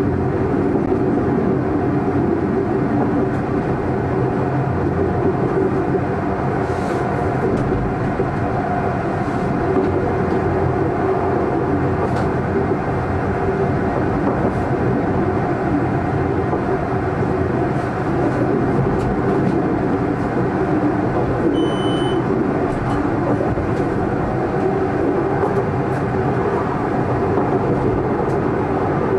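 Electric tram running along its track, heard from inside the driver's cab: a steady rumble of wheels on rails and traction drive. A brief high tone sounds about three quarters of the way through.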